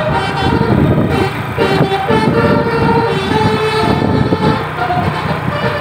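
Tour bus telolet horn playing a tune of held notes that step from pitch to pitch, over the rumble of the bus engine.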